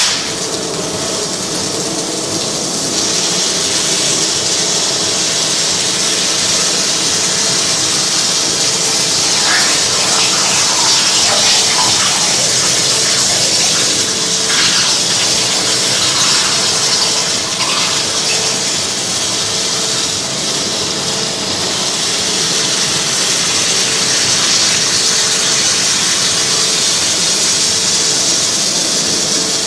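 CNC abrasive water jet cutter running, its high-pressure jet giving a loud, steady hiss, with a few faint squeals in the middle.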